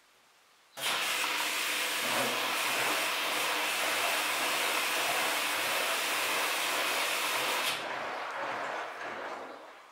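Siemens iSensoric WM12N2K7GR front-loading washing machine mid-cycle: a loud, steady rushing hiss starts suddenly about a second in, drops back about three-quarters of the way through and fades away near the end.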